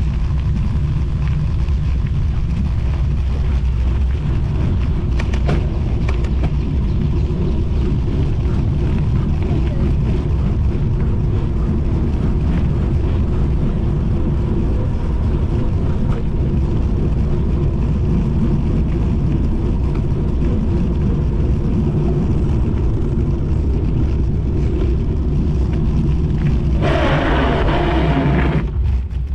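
Wind buffeting the GoPro's microphone during a fast downhill bicycle ride: a loud, steady low rumble. Near the end there is a brief higher-pitched sound, and then the rumble drops off.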